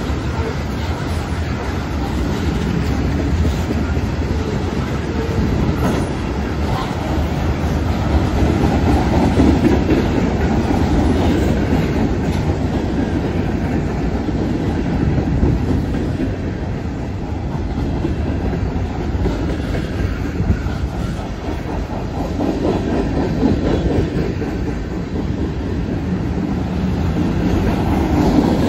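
Freight train cars (tank cars, covered hoppers and boxcars) rolling past at close range: a continuous rumble and rapid clatter of steel wheels on the rails, swelling and easing in loudness as the cars go by.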